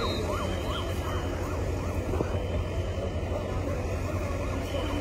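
Emergency vehicle siren in fast yelp mode in the background, about three rising-and-falling wails a second, fading after the first second and coming back near the end, over a low steady rumble of vehicle engines.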